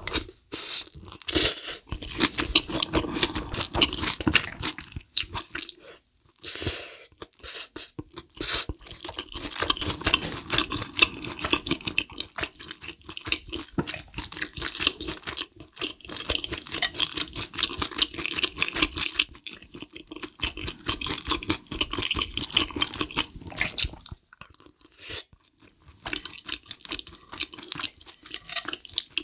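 Close-miked chewing and wet mouth sounds of someone eating rose cream sauce pasta and kimchi pilaf, with cutlery scraping the plate now and then. There are short pauses about six seconds in and again near the end.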